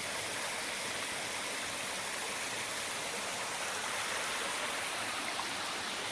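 Waterfall water rushing steadily, an even hiss that does not change.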